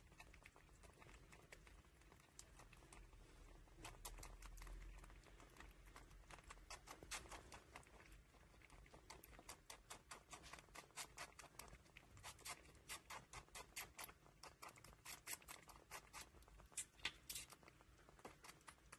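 Baby Eurasian red squirrel suckling at a feeding syringe's rubber teat: a faint, quick run of wet clicking and smacking sounds, several a second, growing denser about halfway through.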